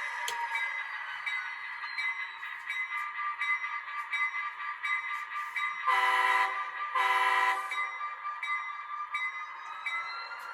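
Sound decoder and speaker of a model EMD SD40-2 diesel locomotive playing the engine running, with two horn blasts a little past the middle, the second slightly longer; the horn is the loudest part.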